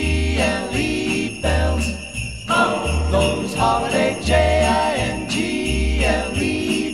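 Festive intro music led by jingling sleigh bells, over a melody and a bass note about every one and a half seconds.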